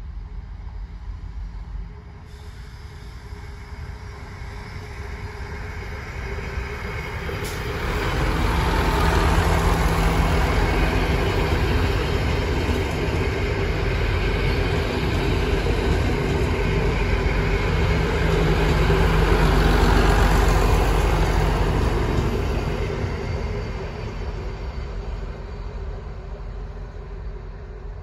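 Diesel railcar train passing: engine hum and wheels rumbling on the rails. It grows as the train approaches, is loudest through the middle as the cars go by, then fades away.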